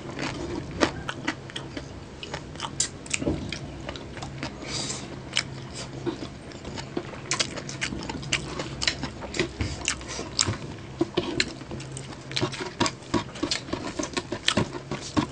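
Close-miked chewing with many sharp, crackly crunches, as two people bite into crispy pata, deep-fried pork knuckle with crunchy skin, and rice. A faint steady low hum runs underneath.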